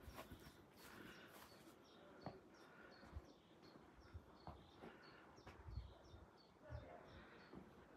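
Faint, rapid series of short, high chirps from a small bird, about three a second, with a few low thumps.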